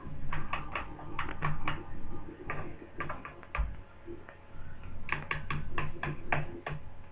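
Three quick runs of light clicks, about five a second, from a screwdriver working the case screws on an Acer Aspire 5920 laptop.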